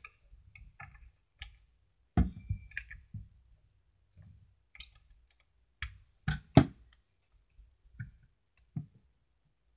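LEGO plastic pieces clicking and knocking as they are handled and pressed onto a brick model: a scattering of sharp clicks, the loudest three in quick succession about six seconds in.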